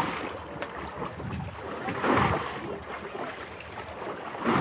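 Open-water ambience: waves lapping and wind on the microphone, swelling about every two and a half seconds.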